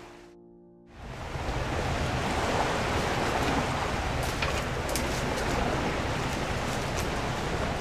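Sea waves washing on the shore, a steady rush that fades in about a second in after a brief silence.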